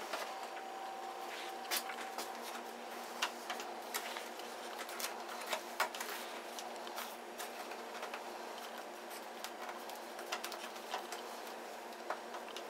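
Irregular light clicks and crackles of plastic covering film on a model airplane's wing as it is handled and pressed with a small hand iron, over a faint steady hum.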